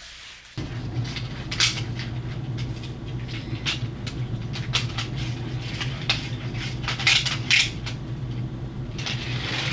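Irregular metallic clicks and clinks of 1/36 diecast pull-back toy cars being handled at the start line, over a steady low hum that starts about half a second in.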